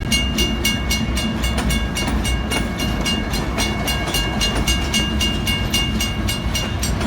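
A freight train of grain hopper cars rolling past: a steady low rumble with rapid, even clicking from the wheels, and a steady high tone over it.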